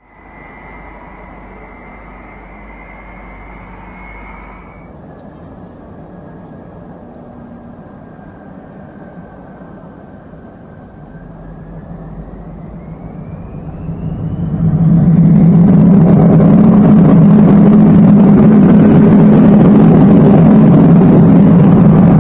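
Tupolev Tu-134AK's twin rear-mounted Soloviev D-30 turbofans with their characteristic high whistle, first steady, then rising in pitch as the engines spool up. The sound swells to very loud about 15 seconds in and stays there, a deep jet rumble under the whistle.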